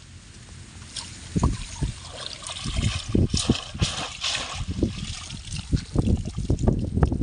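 A bamboo fish trap being lifted out of shallow water among rice plants: water splashing and dripping, stalks rustling, and a run of uneven low thumps from wading steps in mud.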